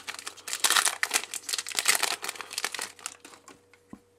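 Crinkling of a Pokémon booster pack's foil wrapper as the pack is opened and the cards are pulled out, dying away about three seconds in, with a single light tap near the end.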